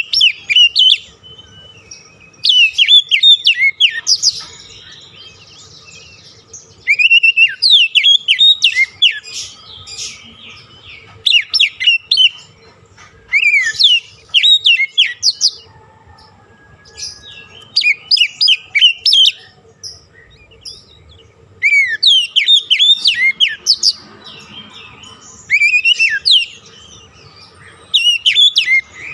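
Oriental magpie-robin (kacer) song: bursts of rapid, varied whistles and chirps in phrases a second or two long, separated by short pauses.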